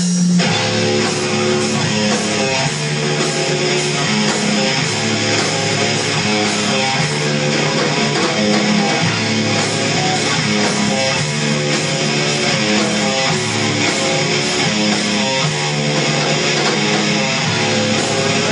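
Live rock band playing loud, with electric guitar and bass guitar, the full band coming in right at the start and the bass line stepping between notes every second or so.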